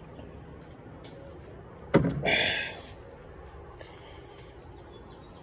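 A sudden knock about two seconds in, followed at once by a loud breathy gasp lasting under a second: a man coming up for air after chugging a bottle of beer.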